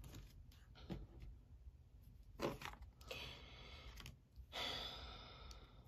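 Faint handling of tarot cards: a few soft taps and two short stretches of quiet rustling.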